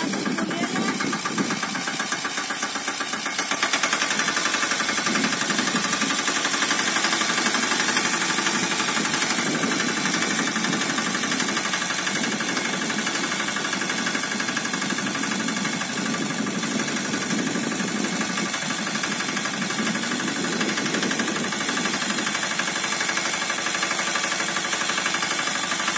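Mini tractor engine running steadily under load as it drags a rear-mounted groundnut digger blade through the soil, a little louder from about four seconds in.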